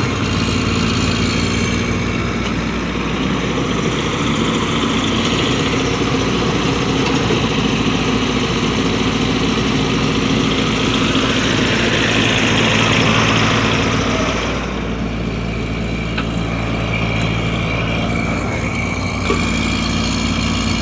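Excavator's diesel engine running steadily while digging a foundation. A louder stretch of mechanical noise builds from about four seconds in and drops back suddenly at about fourteen seconds.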